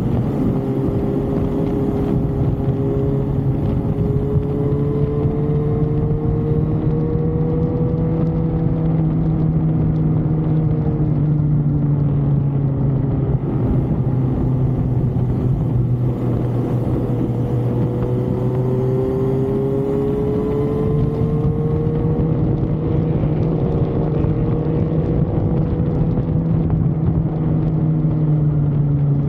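A motor vehicle running on the move: a steady low engine hum under constant road and wind noise, with a higher whine that climbs slowly twice.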